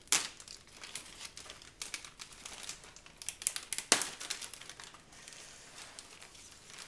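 Clear plastic parts bag crinkling and crackling as it is handled and pulled open, in a run of short crackles with the sharpest just after the start and again about four seconds in.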